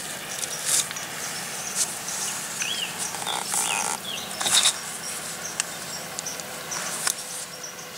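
Rustling and light knocks of hands working at the loon nest close to the microphone, irregular throughout. A few short bird chirps sound in the background about three to four and a half seconds in.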